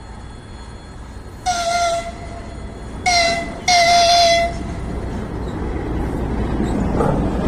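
VL10 electric locomotive sounding its horn three times, two short blasts and then a longer one, in greeting, followed by the growing rumble of the train approaching.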